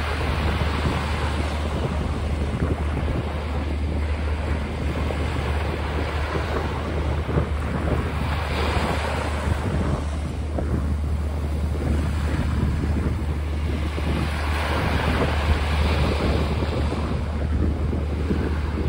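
Small waves breaking and washing up a sandy beach, the surf swelling and fading every several seconds, with wind buffeting the microphone as a steady low rumble.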